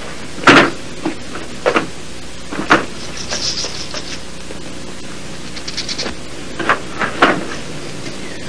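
Several short thuds and scuffles over a steady hum, the loudest about half a second in, with fainter high chirps in between.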